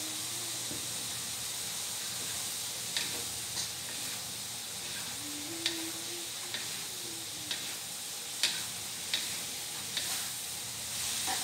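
Long beans sizzling with a steady hiss in a non-stick wok with a little liquid. From about three seconds in, a wooden spatula stirs them, knocking against the pan about once a second.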